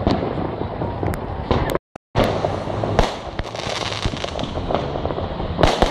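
Fireworks display: a dense, continuous crackle of bursts with sharper bangs, the loudest about three seconds in and near the end. The sound drops out completely for a moment about two seconds in, then resumes.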